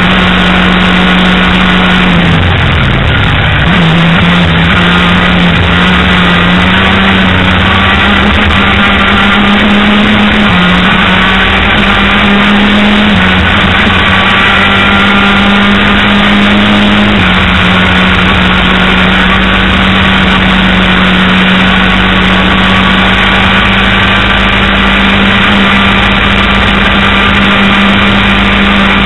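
Onboard sound of a race vehicle's engine held at high revs through a lap: the pitch drops about two seconds in and climbs back within a couple of seconds, then holds with a few small steps. A constant rush of wind and road noise sits under it.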